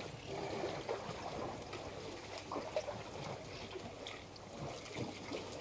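African elephants drinking at a waterhole: irregular sloshing and splashing of water as their trunks draw it up and spray it into their mouths.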